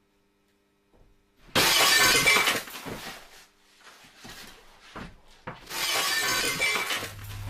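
Two loud crashes of shattering glass about four seconds apart, each breaking off sharply and clattering away over a second or so. A low rumbling drone starts near the end.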